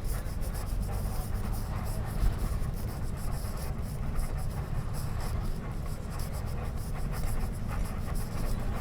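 Tourist bus travelling on the highway, heard from inside: a steady low rumble of engine and tyres on the road, with a light scratchy rattle over it.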